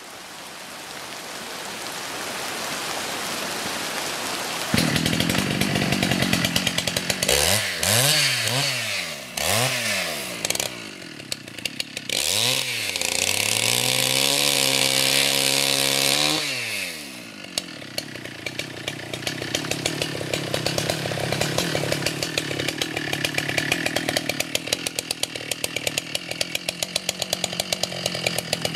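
Two-stroke chainsaw cutting into a fallen tree trunk. It starts quieter and gets abruptly louder about five seconds in, is revved up and down several times, holds a high, steady pitch for a few seconds, then drops to a lower running note in the wood.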